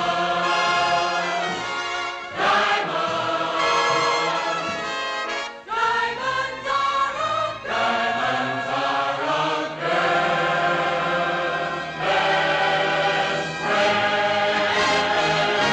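Film-musical soundtrack: a choir singing sustained, swelling chords with orchestral backing, with short breaths between phrases.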